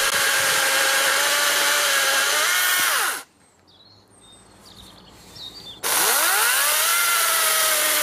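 Einhell GE-LC 36/35 LI 36 V cordless chainsaw running at full speed, cutting through a dry, seasoned log. About three seconds in its pitch sags and it cuts out. It starts again about six seconds in, winding up quickly and running steadily as it cuts.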